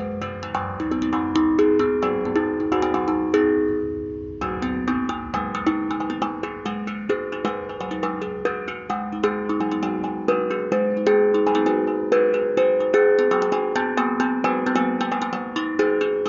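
Steel tongue drum played in a quick run of struck notes, several a second, each ringing into the next as a melody moves between pitches. There is a brief break in the strikes about four seconds in.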